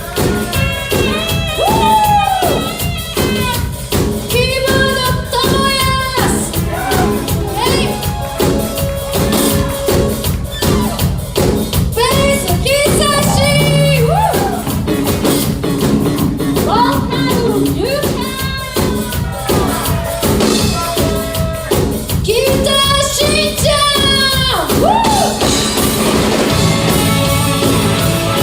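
Live band performing a song with a singer over a steady drum beat; the vocals stop about two seconds before the end and the band plays on.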